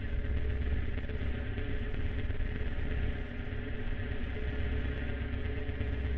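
Designed magnetic-field ambience sound effect: a steady deep electric hum with a grainy, hissing layer over it, unchanging throughout.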